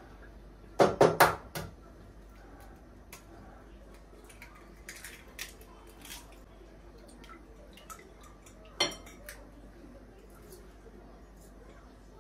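An egg knocked three times in quick succession against a glass dish to crack it open. Faint clicks of kitchenware follow, with one sharp clink about two-thirds through.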